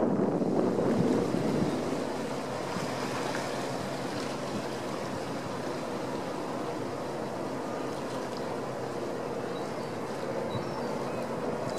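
Steady wind noise and water, with a faint steady engine hum underneath. It is louder for the first couple of seconds, then settles.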